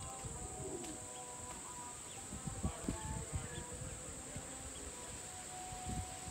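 Steady high-pitched insect drone in farmland, with a few low thumps between about two and a half and three and a half seconds in and again near six seconds.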